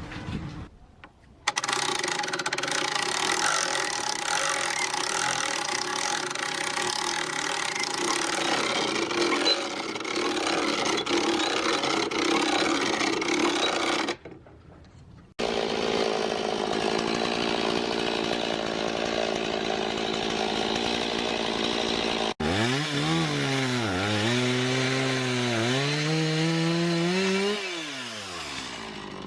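Gas-engine saw cutting wood, heard in three edited stretches with short breaks. In the last stretch the engine note dips and rises as it works, then winds down near the end.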